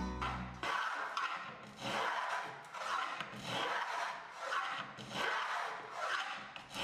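Antique wooden wedge-arm plow plane cutting a groove in a board, its iron taking a shaving on each stroke. About eight short, even strokes follow one another at a little over one a second.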